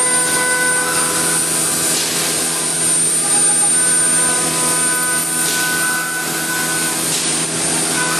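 Woodworking machinery running steadily and loudly: a continuous rushing noise with several steady whining tones over it.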